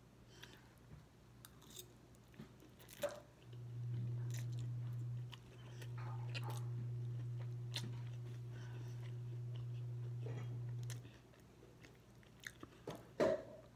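A person chewing a mouthful of food, with small clicks of a fork at the bowl. A steady low hum runs through the middle for several seconds, with a short break.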